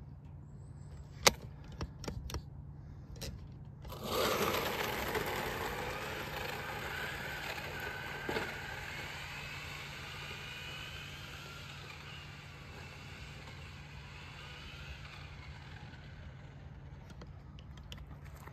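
Tamiya MF-01X radio-controlled car with a 15-turn brushed motor launching at full throttle about four seconds in: a sudden rush of tyre noise and a rising electric motor whine that fades as the car speeds away. A few sharp clicks come before the launch.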